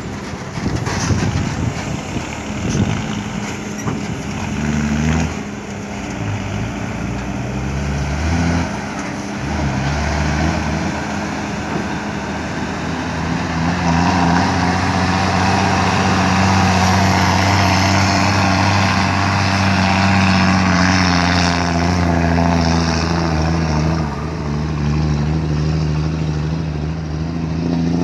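Heavy diesel engines of an excavator and a ten-wheel dump truck working, their engine notes stepping up and down during the first ten seconds. From about 13 to 24 seconds in, the engines run louder and steadier, then ease off near the end.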